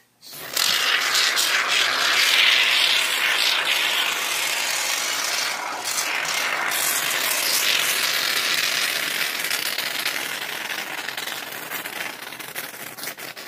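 Aerosol can of Great Stuff expanding foam spraying through its straw nozzle: a long, loud hiss that starts about half a second in. Near the end it weakens and turns ragged and sputtery as the can runs empty.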